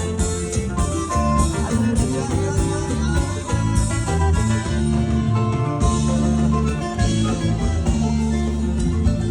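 Loud Latin dance music from a party sound system: plucked guitar over bass and a steady beat.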